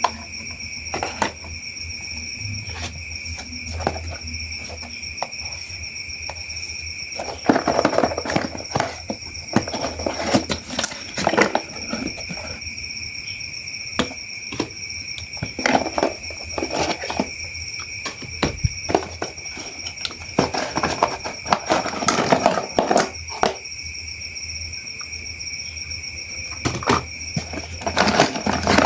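Plastic toy parts and packaging being handled: irregular clicks and bursts of rustling, in several clusters, over a steady high-pitched whine.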